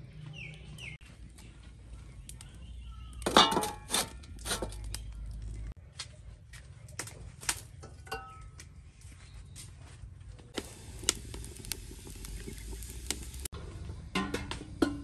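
Metal cooking pots and an aluminium kettle clinking and knocking as they are handled and hung up, with the loudest clanks about three to four seconds in.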